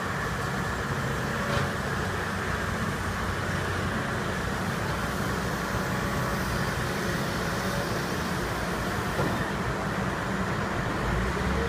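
Heavy diesel construction machinery running steadily, a low engine rumble with an occasional faint knock.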